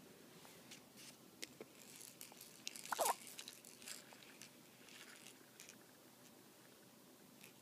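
A two-month-old baby's hiccup: one short, sudden hic with a brief squeak about three seconds in, among faint scattered clicks.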